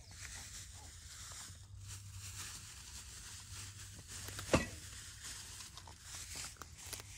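Stray cats eating dry food: a run of small crunching and crackling clicks, with one sharper click about four and a half seconds in.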